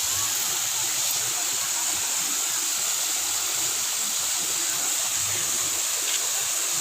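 Steady rush of falling and spraying water from garden fountains, an even hiss with no pauses.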